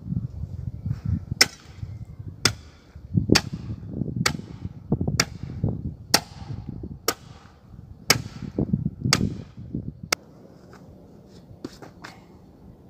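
Long-handled steel hoe chopping into a pile of loose soil and pulling it across a hard road surface: about ten sharp strikes, roughly one a second, each followed by the scrape of soil being dragged. The strokes stop about ten seconds in.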